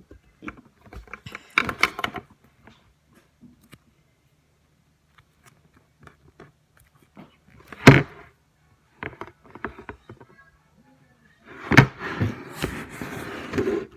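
Handling noises at a desk: scattered knocks and rustling, one loud thump about eight seconds in, and a stretch of steady rustling near the end.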